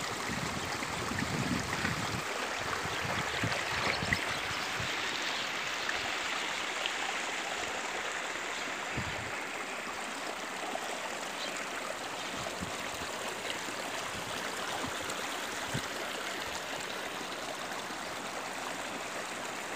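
Andean mountain stream and waterfall rushing over rocks: a steady, even white-water noise, with a few low thumps on the microphone in the first few seconds.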